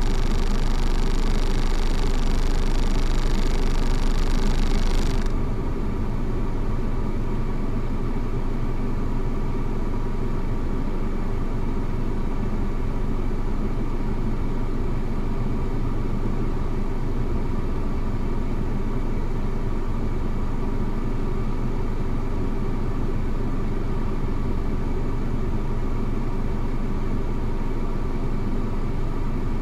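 A car engine running steadily at an even speed. A high hiss over it cuts off suddenly about five seconds in.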